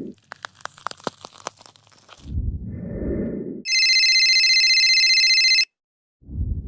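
Sound-effect sequence: a couple of seconds of scattered crackling clicks, a short low noise burst, then a telephone bell ringing steadily for about two seconds and cutting off suddenly.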